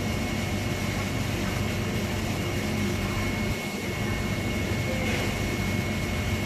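Steady mechanical drone with a low hum and a thin, constant high whine, holding level throughout.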